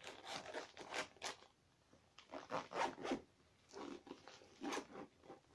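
Zip on a small rucksack pouch being pulled in several short runs, in three spells with brief pauses between.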